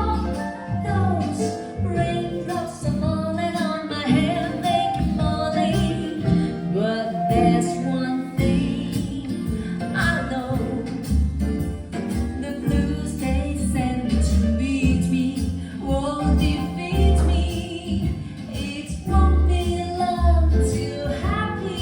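A song with singing over deep, held bass notes, played back over Audioengine A2+ Wireless speakers with an S6 subwoofer.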